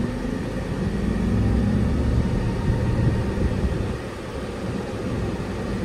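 Road and tyre rumble inside the cabin of a 2024 Acura ZDX A-Spec electric SUV under way, with no engine note. Faint tones rise in pitch near the start. The rumble swells over the first two seconds and eases a little about four seconds in.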